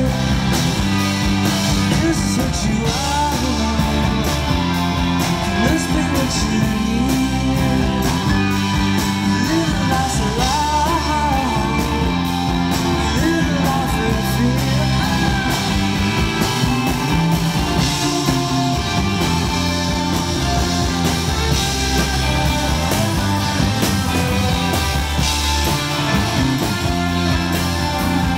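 Live psychedelic rock band playing: electric guitars, bass and a drum kit with cymbals, and a voice singing in places.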